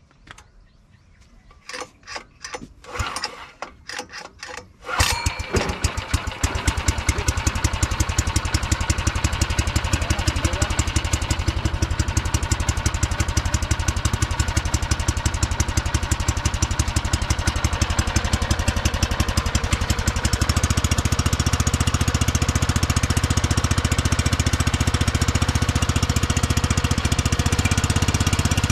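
Small gasoline engine on a power sprayer being started by hand: a few short bursts about two to four seconds in, then it catches about five seconds in and runs steadily. About twenty seconds in the sound gets deeper and heavier.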